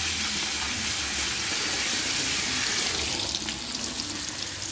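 Flour-battered chicken deep-frying in hot oil in an aluminium wok, a steady sizzle with a few light pops about three seconds in.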